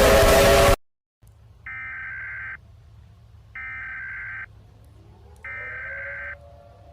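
Emergency Alert System header: three identical bursts of warbling digital data tones, each under a second long and about a second apart. They follow a loud, noisy sound with rising tones that cuts off suddenly less than a second in.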